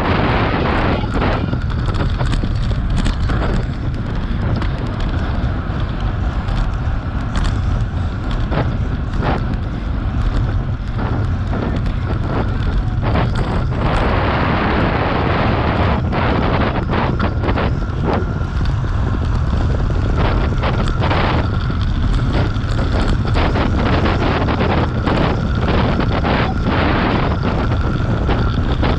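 Wind buffeting the microphone of a handlebar camera on a road bike at about 25 mph, over a steady rumble of tyres on rough asphalt. Frequent small knocks and rattles come from the bike over bumps in the road.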